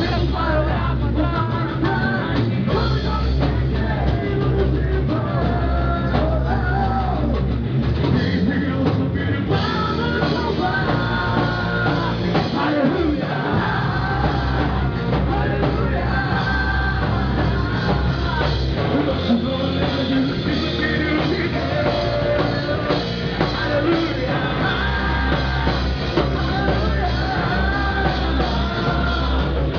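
Rock band playing with a drum kit and a singing voice, loud and continuous.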